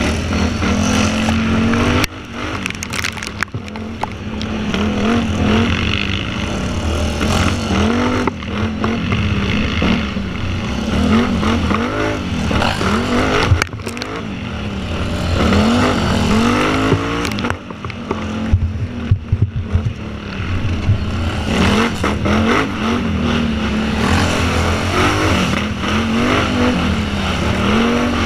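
Twin-cylinder quad engine of over 550 cc, heard from onboard, revving up and falling back over and over as the throttle is worked. Sharp knocks and rattles are scattered through it.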